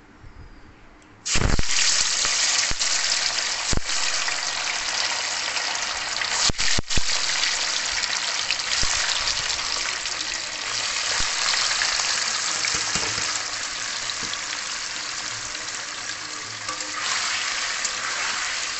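Paneer cubes dropped into hot refined oil in a kadai: a sudden loud sizzle starts about a second in and carries on steadily as they fry, with a few sharp knocks along the way.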